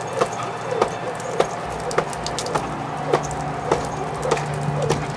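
Jump rope slapping the wet ground once per turn: about nine sharp, evenly spaced strikes, a little under two a second, over a steady hiss of rain.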